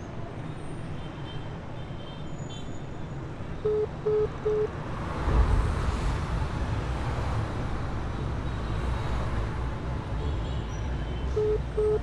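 Street traffic rumble that swells about five seconds in as a motor scooter passes. Over it, a phone gives three short beeps at one pitch, twice (near four seconds in and again near the end), as a call to a number fails to go through.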